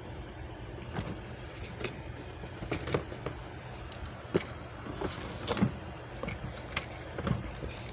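Handling noise: scattered light clicks and knocks, with a brief scrape about five seconds in, over a steady low hum.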